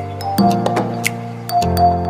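Background music: sustained chords over a bass line with crisp, bright percussive hits at a steady beat.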